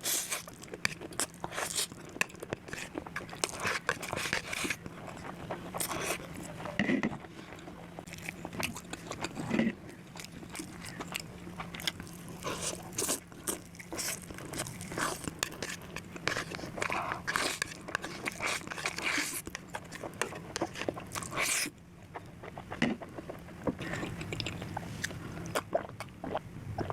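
Close-miked eating sounds: a person biting and chewing food, with many short crunchy, wet clicks that keep on without a break.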